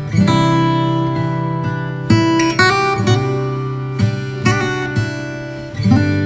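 Background music: an acoustic guitar strumming chords, with a new chord struck every second or so.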